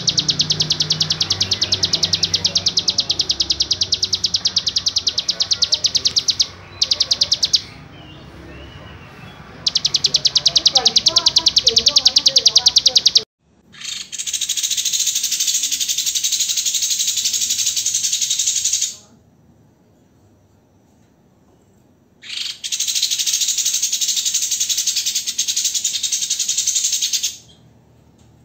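Recordings of caged songbirds singing rapid-fire 'tembakan' trills, notes fired off in quick, dense runs. A fast pulsing trill with brief breaks runs for about the first 13 seconds. After an abrupt cut, a second, higher and more buzzing trill follows in two long bursts with a pause of about three seconds between them.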